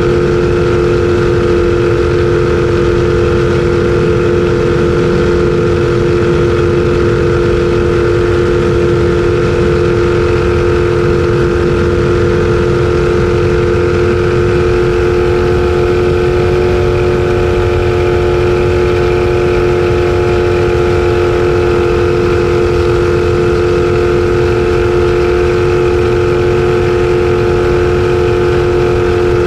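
Racing jet boat's engine heard from the cockpit, running hard at a steady, unchanging pitch, over a low rushing noise.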